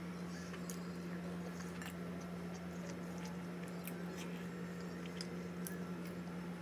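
Close-up chewing of food eaten by hand, with scattered small wet mouth clicks, over a steady low hum.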